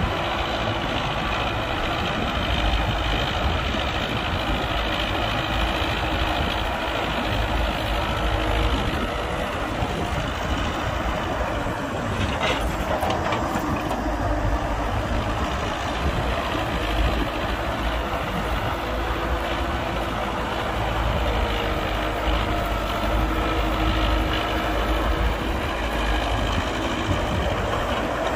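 Heavy diesel engines of an excavator and dump truck running steadily with a deep rumble. There is a single sharp knock about twelve seconds in.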